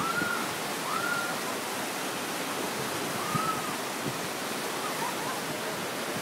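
Steady rush of white-water river rapids below a dam spillway. A few short, high tones that rise and fall sound over it, near the start, about a second in and about three seconds in.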